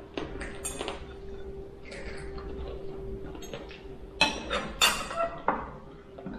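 Spoons and dishes clinking as people eat: scattered sharp clinks, the loudest a cluster about four to five and a half seconds in, over a faint steady hum that fades out about four seconds in.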